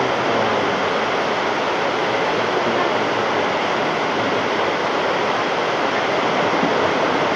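Heavy summer rain pouring down, a steady dense hiss that does not let up.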